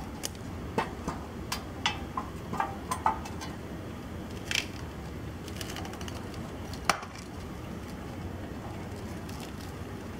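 Light clicks and knocks of a trimmer rack being handled, its parts tapping and fitting together. They come as a cluster over the first few seconds, then a couple of single knocks later, over a steady low background noise.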